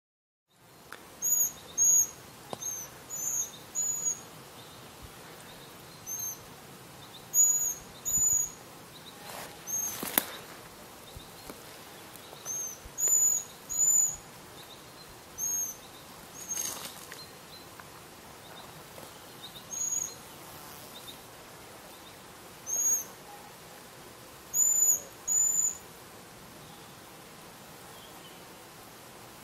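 Juvenile Eurasian pygmy owl giving high, thin begging calls to its parents: short whistled notes that rise and fall in pitch, singly or in quick pairs, repeated at irregular intervals over a steady faint hiss.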